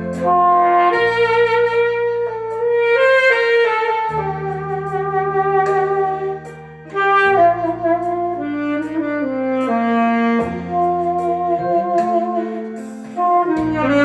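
Saxophone playing a slow melody with vibrato on held notes, over a backing track with low sustained accompaniment. The melody pauses briefly about halfway through and again near the end.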